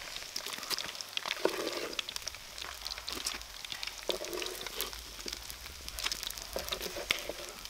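Hot oil sizzling and crackling steadily as fish fries in a pan, with many small pops.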